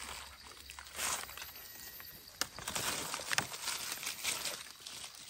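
Dry leaf litter and twigs rustling and crackling as a small knife digs into the forest floor around a wild mushroom, with a couple of sharp snaps in the middle.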